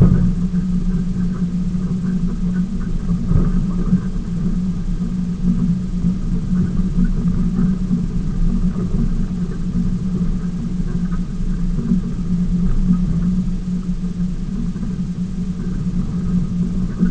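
Ford F-150 pickup with a 5.0 L V8 driving off-road over sand, heard from a camera mounted under the truck: a loud, steady rumble of tyres, drivetrain and engine, with a knock now and then.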